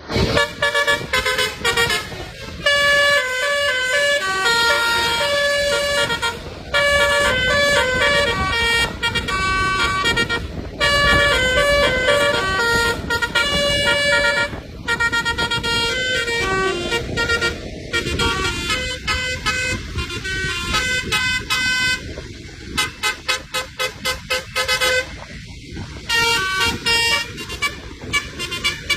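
Basuri musical air horn on a bus playing a tune: a string of loud horn notes stepping up and down in pitch, changing to a rapid run of short blasts in the later part.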